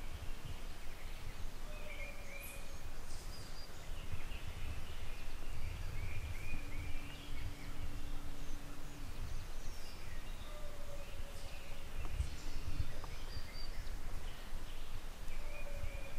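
Spring woodland ambience: small songbirds chirping and singing on and off over a low rumble, with a faint steady hum for a couple of seconds mid-way.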